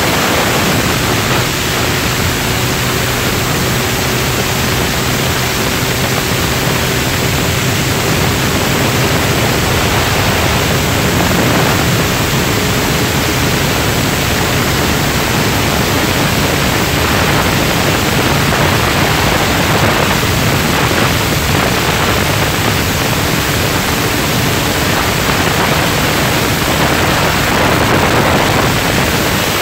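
Wind rushing over a phone microphone on a moving motorcycle, a loud steady hiss, with the Honda CBR1100XX's engine hum faintly underneath, its pitch slowly rising in the first half.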